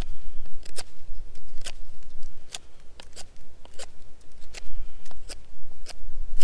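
Knife blade shaving thin curls down a wooden stick to make a feather stick: a run of short, sharp scraping strokes, roughly two a second.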